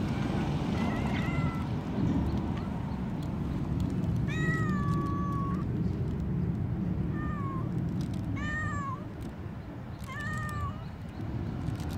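Calico stray cat meowing insistently: a faint call near the start, then one long meow about four seconds in and three shorter ones after it, over a steady low background rumble.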